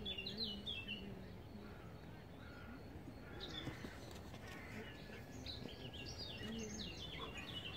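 Small birds chirping and twittering in short bursts, near the start, in the middle and again near the end, over a faint, steady outdoor background.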